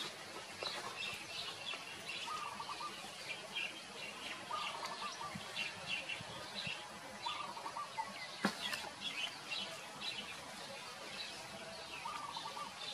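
Birds chirping steadily, with one lower call repeating every two to three seconds and a single click about eight and a half seconds in.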